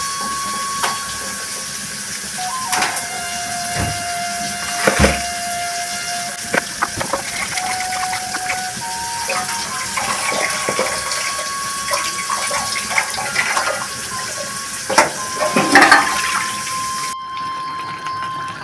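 Tap water running and splashing as food is rinsed by hand in a plastic basin and colander, with knocks and splashes from the handling. The running water cuts off suddenly near the end.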